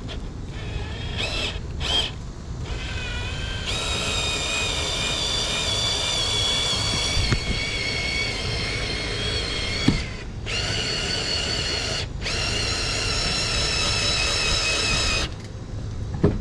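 Ryobi cordless power screwdriver motor whining under load in several runs, turning the car jack's screw through a universal socket to raise the car. Two short blips come first, then long steady runs broken by two brief stops.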